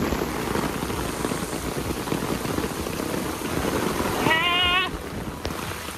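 Heavy rain falling steadily on a lawn and garden. About four seconds in comes a short, high, wavering voice.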